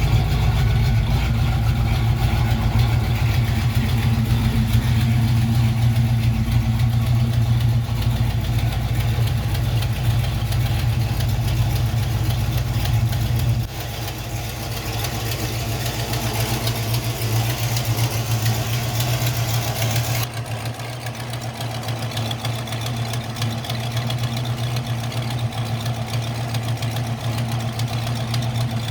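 Vehicle engine idling steadily; the engine has an exhaust leak. The sound drops in loudness about 14 seconds in and again about 20 seconds in.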